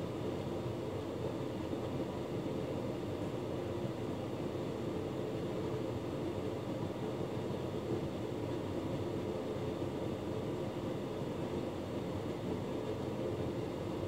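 Hotpoint Ultima S-Line tumble dryer running steadily, its motor, fan and turning drum giving a constant hum.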